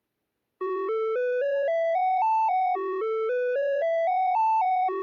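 Electronic alert melody from an emergency alert (EAS) alarm recording, starting about half a second in: a run of clear beeping notes stepping upward, dipping on the last note, then starting again, repeated about every two seconds.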